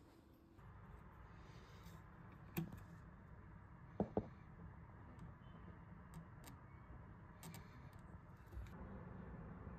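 Faint low background hum with a few scattered light clicks, the clearest a close pair about four seconds in.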